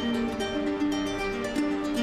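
Instrumental background music: a melody of plucked string notes, each held about half a second.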